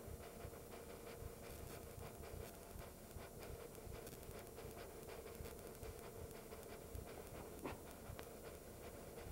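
Faint, steady rumble with a low hum: cabin noise of a moving vehicle, heard from inside.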